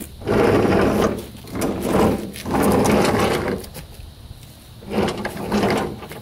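Cub Cadet 46-inch steel mower deck dragged out across an asphalt driveway in several pulls, a grinding scrape with each pull.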